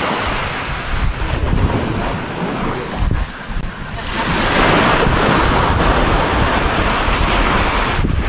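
Small waves breaking and washing up a sandy beach, with wind blowing across the microphone. It gets louder about four seconds in.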